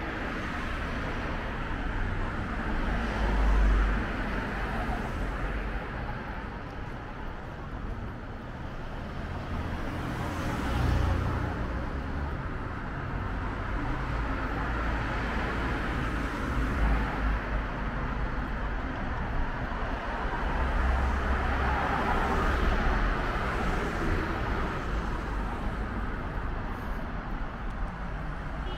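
Road traffic on a town main street: a steady hiss of passing cars' tyres and engines, swelling louder several times as vehicles drive by.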